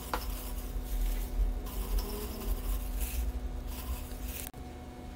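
A gloved hand packing grated beetroot and onion into a glass jar: soft irregular rustling and squishing of the vegetables with low handling thumps, and a short clink of the jar near the start. A faint steady hum sits underneath.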